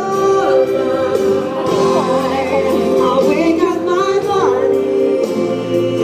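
A woman and a man singing a musical-theatre duet over sustained accompaniment, amplified through a stage PA.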